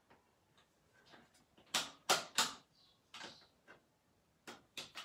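Hard plastic clicks and knocks from a Nerf Fortnite SP-L blaster being handled as its barrel attachment is fitted onto and pulled off the muzzle: three sharp clicks close together about two seconds in, then a few more near the end.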